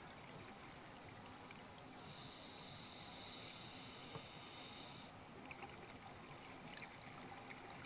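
Scuba breathing heard underwater: faint bubbling and trickling from regulator exhaust, with a louder steady hiss carrying a thin high whistle for about three seconds in the middle, like a breath drawn through the regulator.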